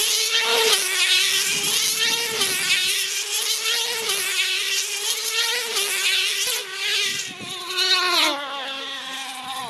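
Small two-stroke model engine of a tether car running flat out as the car laps the track: a loud, high-pitched whine whose pitch wavers slightly. About eight seconds in, the pitch drops as the engine slows.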